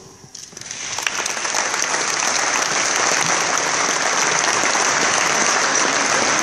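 Audience applauding, building up over the first two seconds and then holding steady.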